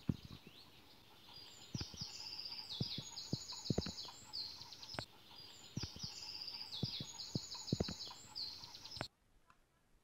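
A songbird singing the same high trilled phrase twice over footsteps on a paved path. Both cut off abruptly about nine seconds in.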